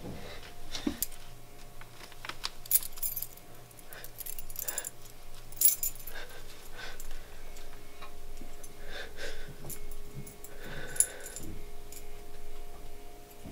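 A bunch of keys jangling and clinking in scattered bursts, over a faint steady hum.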